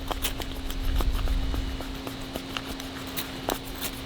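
Irregular short scrapes and clicks from handling a ferro rod fire starter and its cord, over a faint steady hum, with a low rumble in the first second or so.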